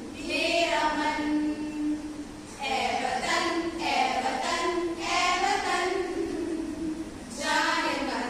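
A group of women singing a patriotic song together in unison, in phrases of two to three seconds with brief pauses between them.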